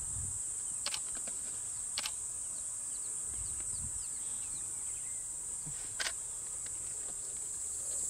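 Steady, high-pitched insect chorus, with three sharp clicks about one, two and six seconds in.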